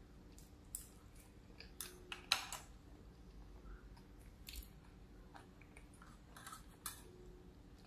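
A person chewing a mouthful of pasta, with scattered short wet mouth clicks, the loudest about two and a half seconds in.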